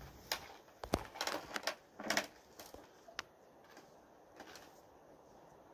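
Handling noises from a scoped .270 hunting rifle on a bench rest: scattered clicks and light knocks as it is adjusted and brought to the shoulder, bunched in the first two and a half seconds, with one more click about three seconds in. No shot is fired.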